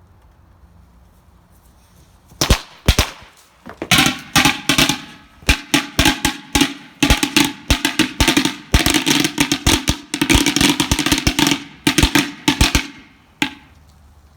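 A string of firecrackers going off: rapid, irregular sharp cracks, like popcorn popping, starting about two seconds in and running for about ten seconds, with one last crack near the end.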